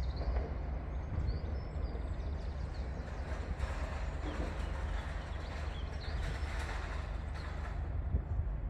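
Railway station ambience: a steady low rumble of a train running nearby, with a few faint high chirps.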